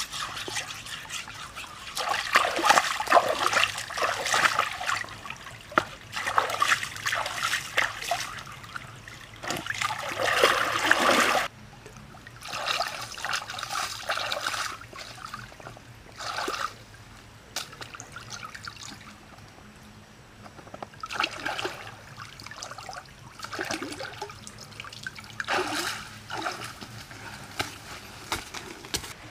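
Shallow stream water splashing and trickling as hands scrub and rinse a flat stone in it. The splashing is loudest through the first part and stops abruptly a little before halfway. Softer, intermittent splashes follow.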